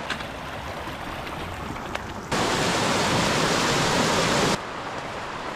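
Steady rushing of running stream water, much louder for about two seconds in the middle, starting and stopping abruptly.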